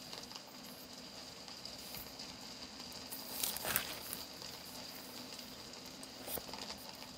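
Thin Bible-paper pages being turned by hand, with the loudest rustle of a page turn about three and a half seconds in and a smaller one near the end, over a faint steady hum.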